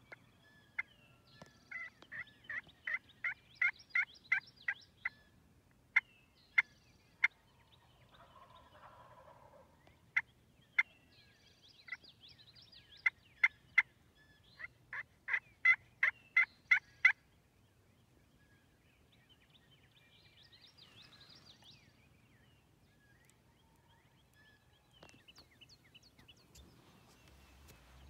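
Turkey yelping: two runs of loud, sharp yelps, a few a second, with single yelps between them. It goes quiet after about seventeen seconds.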